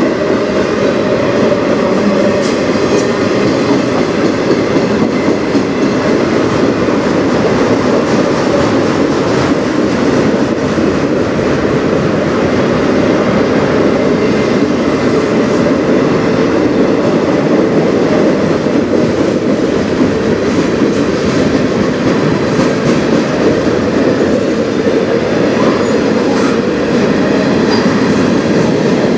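Freight cars of a manifest train rolling past on the near track: a loud, steady rumble of steel wheels on rail with faint clicks.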